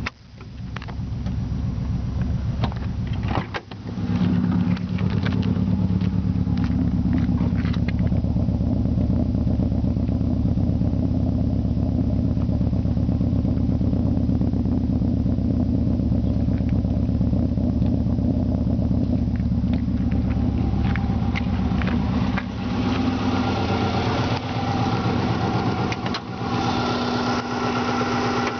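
Subaru EJ20G turbocharged flat-four starting and then running unevenly at idle: a misfire from a cylinder with zero compression, caused by a hole in a piston, with a bad exhaust leak. The sound drops out briefly near the start and again at about three and a half seconds, then runs steadily, changing in tone after about twenty seconds.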